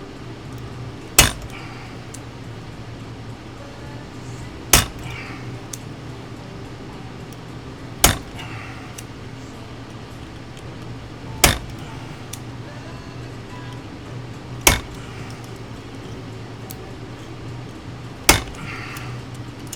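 Six sharp hammer blows about three seconds apart, setting a rivet on a toy train car against a hard surface, each with a short ring. A steady low hum sits underneath.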